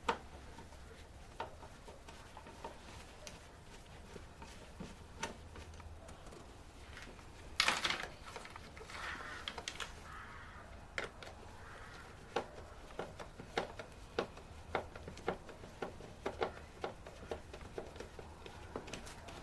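Hands working on a car's air filter housing: scattered light clicks and knocks, with a louder scrape about eight seconds in.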